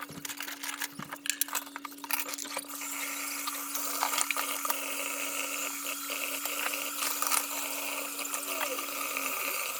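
Water running steadily, starting about three seconds in, after a few light clinks and knocks, with a steady low hum underneath.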